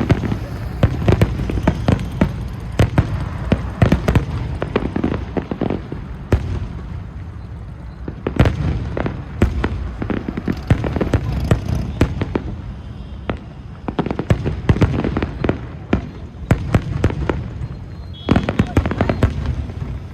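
Fireworks display: a dense, irregular run of bangs and crackles over a continuous low rumble, with a quick cluster of bangs near the end.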